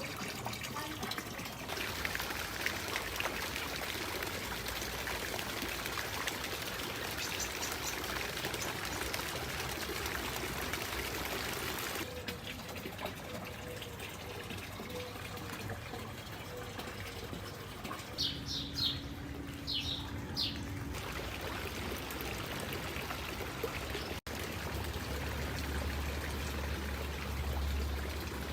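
Water from a fountain trickling and splashing steadily. A few short, high bird chirps come through about two-thirds of the way in.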